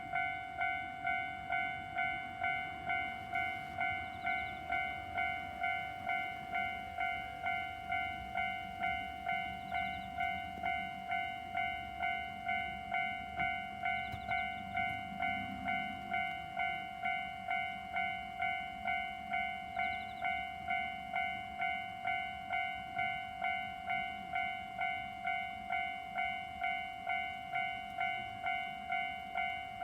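Japanese railway level crossing's electronic warning bell ringing in a steady, unbroken rhythm of repeated strokes, the alarm that a train is approaching the crossing.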